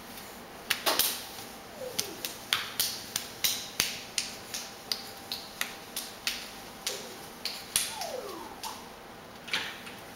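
A crawling baby's hands slapping on a tiled floor: quick sharp slaps, about two or three a second, stopping just before the end.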